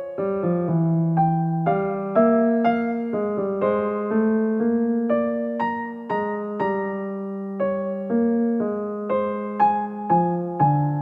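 Background piano music: a slow, gentle piece of single notes and chords, each struck and left to fade.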